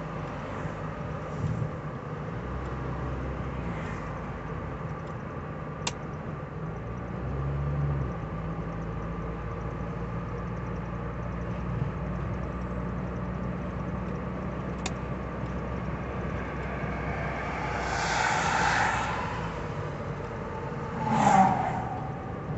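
Engine and road noise heard from inside the cabin of a 1985 Cadillac Cimarron cruising at a steady speed. A steady low hum runs throughout, and two louder swells of noise come near the end.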